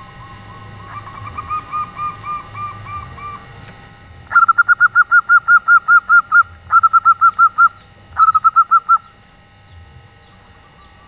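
Female zebra dove calling in the rapid 'nyelir' style. A softer run of quick coos comes first, then three loud bursts of rapid, evenly repeated coos at about six a second, with short breaks between.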